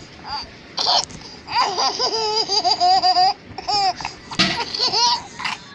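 A young girl laughing in high-pitched, repeated giggles, broken by two short sharp sounds about a second in and a little past four seconds.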